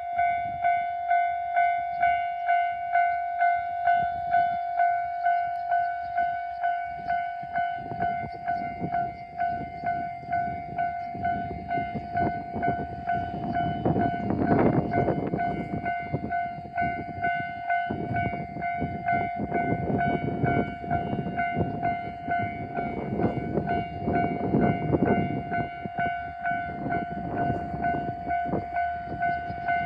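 Level crossing warning bell ringing steadily, about two strikes a second, while a JR Shikoku 1200 series diesel railcar passes over the crossing. From about eight seconds in, the railcar's rumble builds, with regular clacks of wheels over rail joints, loudest about halfway through and again near the end.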